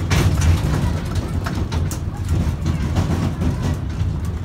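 Ride-on mini train running: a steady low rumble with scattered clicks and rattles.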